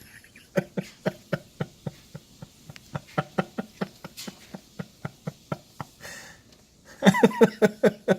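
A person's short voiced huffs or gasps in a quick rhythm, about three a second, breaking into a louder run of shaky, wavering vocal sounds about seven seconds in.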